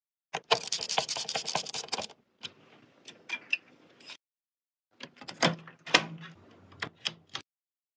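Computer parts being handled and fitted during a PC build: a dense run of rattling clicks for about two seconds, then scattered sharp clicks and knocks.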